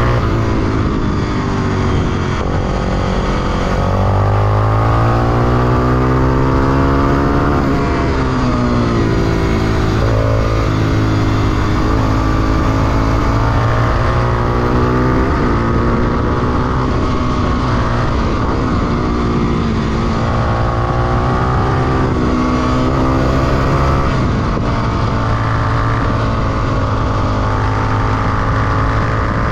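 Honda XR250 Tornado's single-cylinder four-stroke engine at full track pace: its pitch climbs through each gear and drops sharply at the shifts and on braking into corners, over and over.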